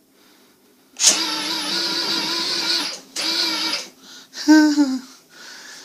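Small electric drive motor and gearbox from an old remote-control car, run by remote to drive a homemade Dalek's wheel forward: it whines in two bursts, the first nearly two seconds long and the second shorter, followed by a short lower sound that falls in pitch.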